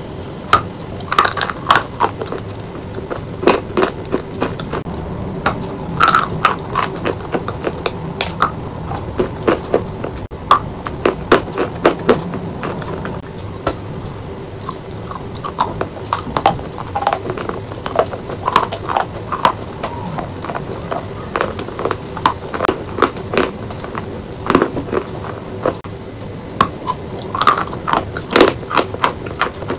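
A person biting and chewing a block of chalk coated in a soft paste: rapid crunches and crackles as the chalk breaks in the mouth, in irregular clusters.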